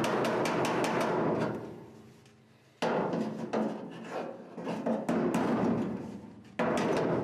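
Body hammer striking a sheet-steel panel flange held against a steel dolly block, folding the edge over, with the metal ringing after each blow. Quick taps at about four or five a second, a pause of about a second and a half, then slower, uneven taps, and a fast run again near the end.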